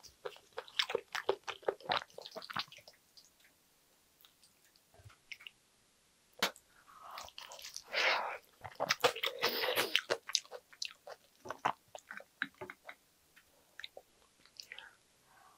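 Chewing and wet mouth sounds of someone eating spicy stir-fried pork intestines (gopchang), pausing for a few seconds after about three seconds. About halfway through comes a denser, louder stretch of biting and chewing as a perilla-leaf wrap goes into the mouth.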